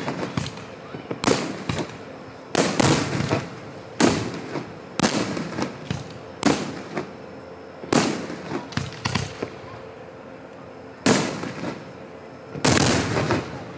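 Aerial fireworks shells bursting: about a dozen sharp booms, irregularly spaced one to two seconds apart, with a gap of about two seconds past the middle.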